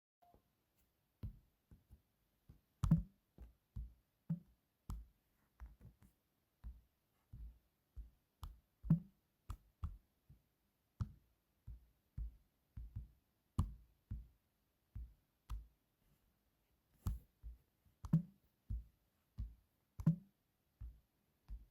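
Phone ringtone made of a sparse electronic drum beat: short low kick-like thumps with faint clicks on top, about two a second in an uneven pattern, pausing briefly about three-quarters of the way through.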